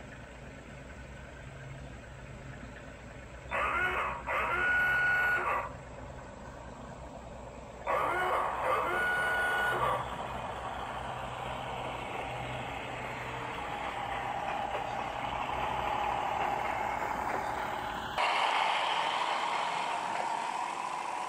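Model Model T inspection car on a garden railway sounding its horn twice, each honk a short note then a longer held one, over a steady low hum of the car running. A rising whine follows as it comes closer, and the sound changes abruptly near the end.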